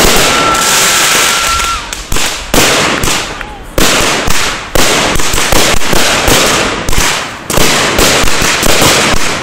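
Aerial fireworks going off in quick succession: sharp bangs about once a second with crackling between them, and a steady high whistle during the first two seconds.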